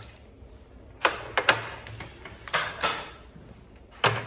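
Dishes and tableware clattering as plates are set down on banquet tables: a few sharp clacks about a second in and again near the end, with softer scraping between.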